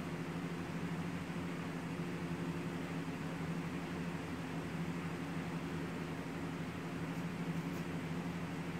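Steady low mechanical hum over a constant hiss, with two faint ticks near the end.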